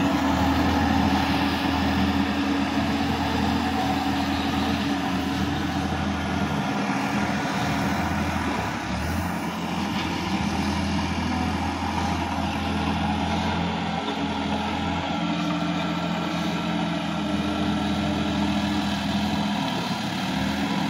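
Sonalika DI-50 RX tractor's diesel engine running steadily under load as it tills a flooded, muddy paddy field.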